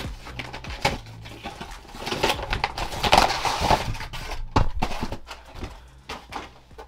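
Cardboard of a trading-card collection box being torn and folded open, with the clear plastic card tray inside crackling as it is handled. The sound is irregular rustling and crinkling with sharp clicks, busiest around the middle.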